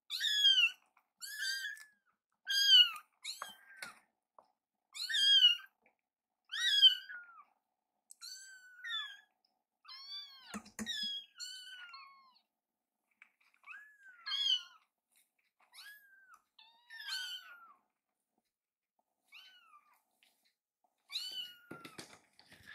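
Young kittens mewing over and over in thin, high cries, each call rising and then falling in pitch: hungry kittens begging while their food is being readied. The calls come about once a second at first, then more spread out, with a single sharp knock about ten seconds in.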